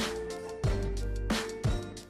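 Background music with a steady drum beat over held bass notes.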